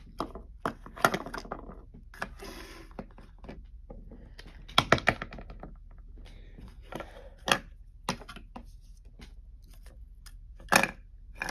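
Plastic Littlest Pet Shop toys and accessories being handled and set down on a wooden tabletop: a string of irregular knocks and clatters, with a short paper rustle about two seconds in.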